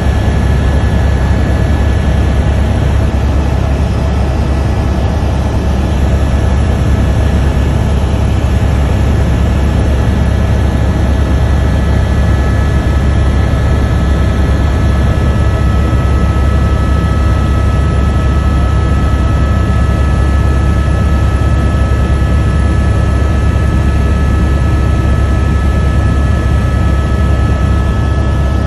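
Helicopter in flight heard from inside the cabin: a loud, steady drone of rotor and engine, heaviest in the low end, with a few thin steady whines above it. A further whine joins about halfway through.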